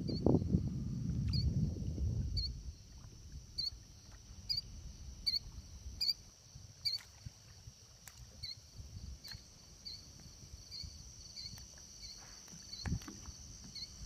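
Night-time outdoor wildlife: a steady high drone, with a short high chirp repeating a little more than once a second. Low rumbling noise fills the first couple of seconds, and a couple of sharp knocks come near the end.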